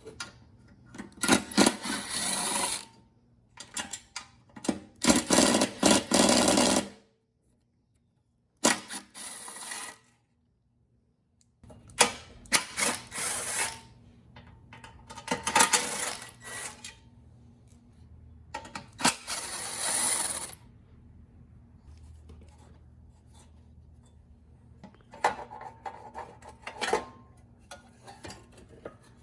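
Short bursts of a power tool driving fasteners on a small mower engine, several times over, with clinks of metal parts and tools in between.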